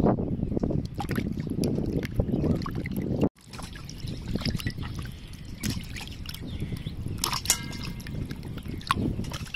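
Water sloshing and splashing in a metal basin as hands rub and squeeze raw squid, with wet squelches and drips. It drops abruptly about a third of the way in and goes on softer, with a brief sharp squeak-like sound about three-quarters of the way through.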